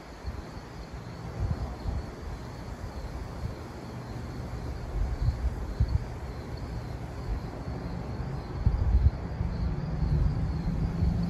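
Outdoor night ambience: crickets chirping steadily at a high pitch, with wind rumbling on the microphone, gusting harder near the end.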